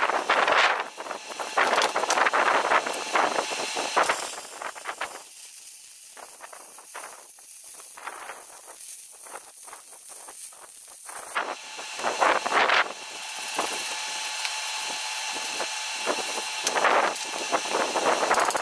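Electric arc welding on a steel truck rear axle housing: the arc crackling and hissing in stretches of several seconds, with gusty noise between.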